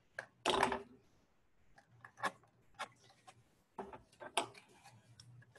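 Wooden toothpicks being poked through a cardboard tube and the tube handled: scattered clicks and short scrapes, with a louder scrape about half a second in.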